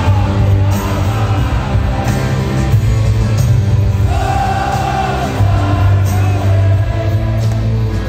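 Live rock band playing loud through a concert PA: electric guitars, bass and drums, with singing that holds long notes from about four seconds in, recorded from within the audience.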